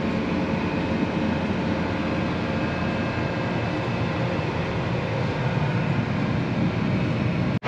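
Steady drone of a John Deere 8R 370 tractor's diesel engine and drivetrain, heard from inside the cab while driving. The sound drops out briefly near the end.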